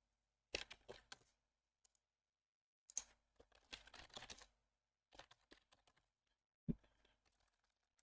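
Computer keyboard typing and mouse clicks in short bursts, with a louder single click about seven seconds in.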